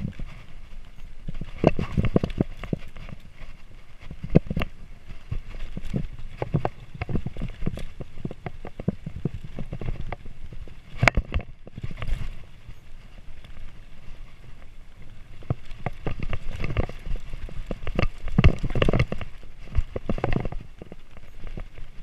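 Mountain bike rolling over a rocky dirt trail: tyres crunching on dirt and stones while the bike and camera mount rattle and knock over the bumps, with dense clusters of knocks in the rougher stretches.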